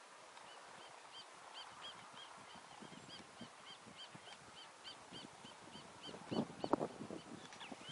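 A bird calling over and over, a steady run of short high chirps about three a second. A few dull thumps about six seconds in.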